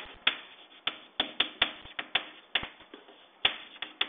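Chalk on a blackboard while writing words: irregular sharp taps and short scratches, about three a second, as each letter stroke hits the board.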